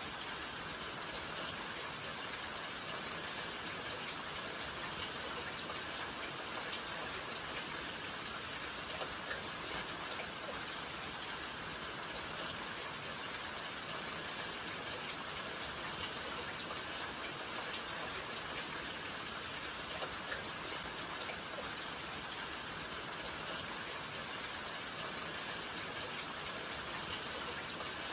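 Steady rain falling, with many individual raindrops pattering on surfaces.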